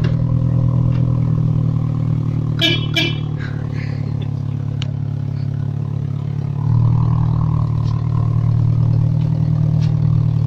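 Engine of a car cut in half, running steadily as it drives, then picking up and getting louder about two-thirds of the way through as it accelerates. Two brief pitched toots come about three seconds in.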